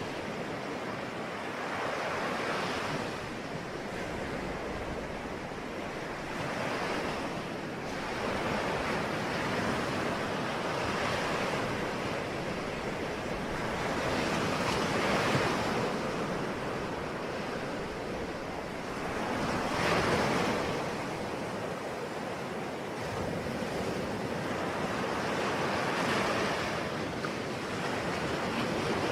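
Ocean waves: a continuous rush of surf that swells and fades again roughly every four to six seconds as each wave comes in.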